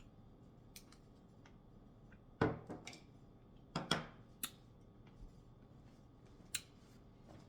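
Tableware handled during a meal: about eight scattered light clicks and knocks, the loudest about two and a half seconds in and a small cluster near four seconds.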